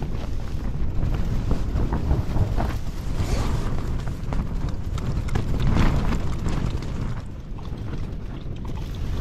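Strong wind gusting against the tent and the microphone: a steady low rumble with fabric rustling and scattered light clicks, swelling to its strongest just before six seconds in.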